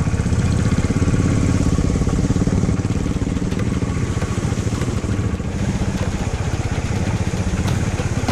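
Motorcycle engine running steadily at low speed on a rough off-road track, its firing pulses dense and even.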